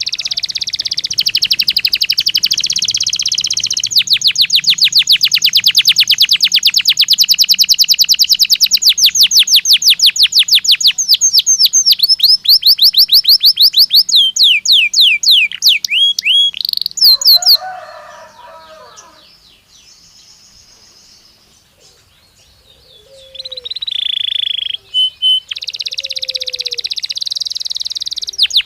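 Belgian canary singing: long rolls of rapidly repeated notes, then a few falling whistled notes. The song breaks off for several seconds past the middle and then starts up again.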